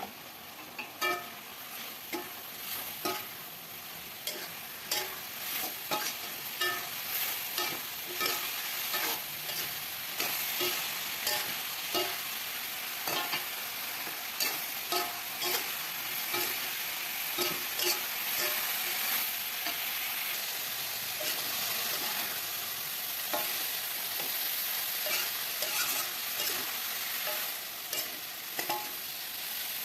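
Stir-frying in a pan: a spatula repeatedly knocking and scraping against the pan, each strike leaving a short metallic ring, about once or twice a second, over a steady sizzle of food frying in oil.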